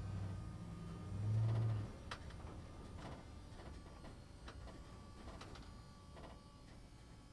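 Truck driving through a concrete parking structure: a low engine rumble that swells about a second in and then drops away, followed by scattered clicks and knocks.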